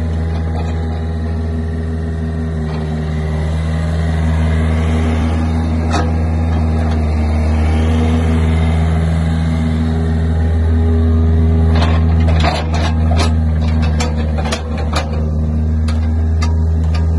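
Takeuchi TB53FR mini excavator's diesel engine running steadily while the boom, arm and hydraulic thumb are worked. From about twelve seconds in there is a run of sharp clicks and knocks.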